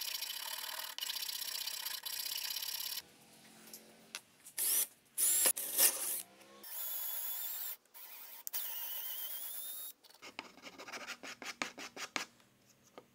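Hand woodworking on a small hardwood block. A flat file scrapes across the wood in strokes about a second long, a cordless drill then bores a hole into the block in short bursts and a steadier run, and near the end a small file rasps in many quick strokes.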